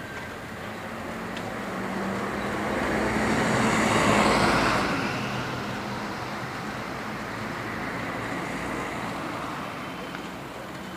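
A road vehicle passing close by, its noise swelling to a peak about four seconds in and then fading, over steady street background noise.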